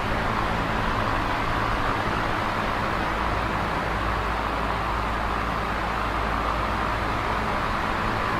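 Large box fan running steadily at high speed: an even rushing of air over a low motor hum.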